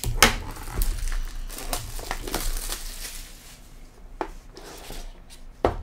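Plastic shrink wrap being torn and crinkled off a cardboard trading-card hobby box, crackling busily for the first three seconds and then more sparsely. A single sharp knock near the end.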